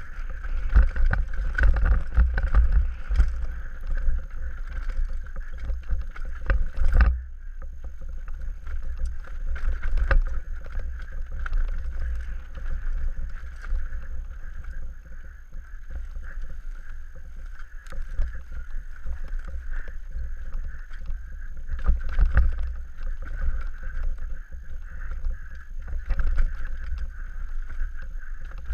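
Wind buffeting a helmet-mounted camera's microphone as a Scott Gambler downhill mountain bike runs fast over a rough, rocky trail, with the bike rattling and frequent sharp knocks from the tyres striking rocks and bumps.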